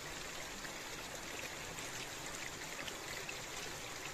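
Shallow running water trickling over stones, with light splashing as a green bamboo tube is dipped and rinsed in it.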